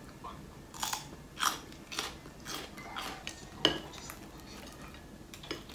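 Eating at a table: a string of short clicks and clinks of utensils, a small glass jar and chopsticks against tableware, with chewing. The loudest is a single knock a little before four seconds in.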